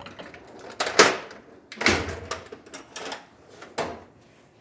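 Hard objects being handled at an espresso machine: a series of sharp knocks and clatters, the loudest about a second in and again just before two seconds, with lighter ones after.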